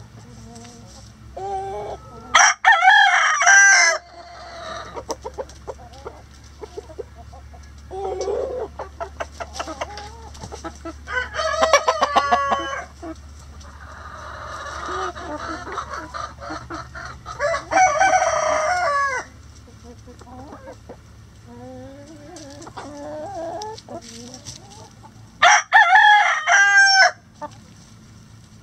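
Backyard chickens clucking, with four loud, drawn-out calls spaced several seconds apart and softer clucks between them.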